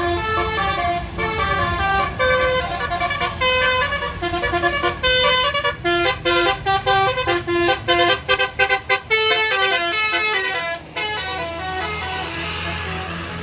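Multi-note telolet bus horn playing a melody of stepping tones, with a run of quick staccato toots about eight to nine seconds in, stopping about eleven seconds in. The bus engine rumbles underneath.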